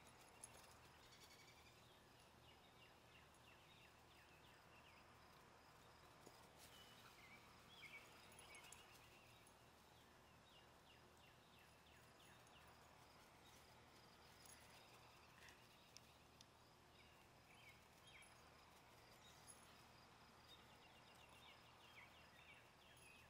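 Near silence: faint outdoor ambience, with quiet high chirping here and there.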